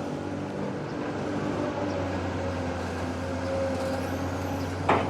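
Heavy diesel machinery running steadily at a low, even hum, with a brief sharp sound near the end.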